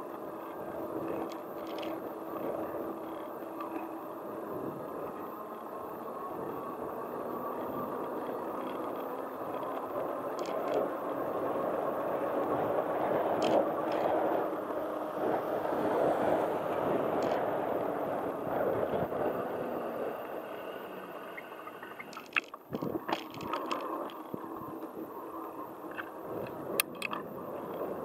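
Steady rolling road noise from a ride along asphalt: wheels on the road surface with wind rushing over the microphone, growing louder in the middle. About three quarters of the way through it dips briefly, and a few sharp clicks and knocks follow.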